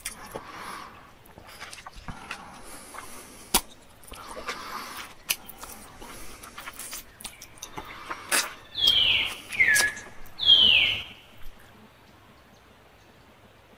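Infant macaque giving three short, high calls, each falling in pitch, about a second apart, after several seconds of soft rustling and scattered clicks.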